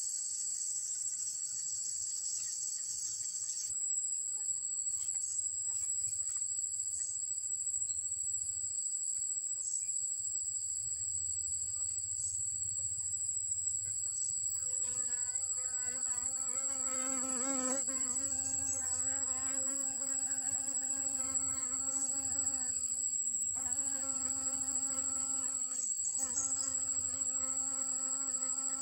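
A steady, high-pitched insect chorus runs throughout. About halfway in, a bee buzzes close by, its wingbeat hum wavering in pitch, with two short breaks near the end.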